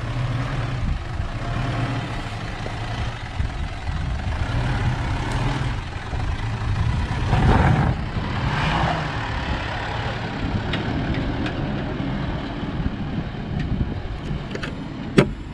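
Four-wheel-drive SUV engine running at low speed as the vehicle crawls over rocky ground, swelling louder for a moment about halfway through. One sharp click near the end.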